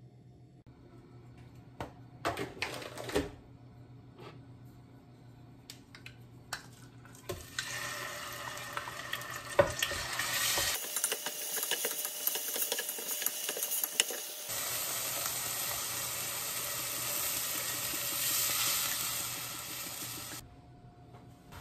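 Beef sizzling in a pot on the stove as it is stirred with a wooden spoon, with clicks and scrapes of the spoon against the pot. The sizzle starts a few seconds in and stops shortly before the end.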